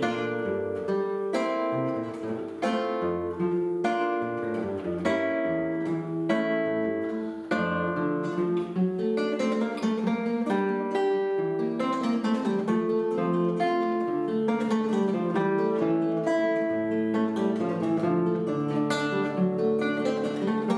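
A duet of plucked string instruments playing a classical-style piece: a melody and a bass line of picked notes, each starting sharply and fading, with a few strummed chords in the first half.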